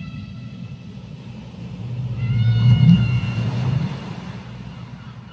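Whale call underwater: a long, held tonal moan with overtones from about two to four seconds in, over a steady low rumble of deep water. The tail of an earlier call fades out at the start.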